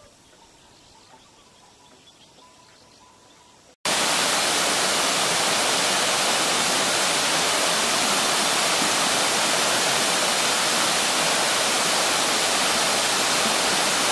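Quiet ambience for about four seconds, then an abrupt cut to the loud, steady rush of a waterfall cascading down a rock face.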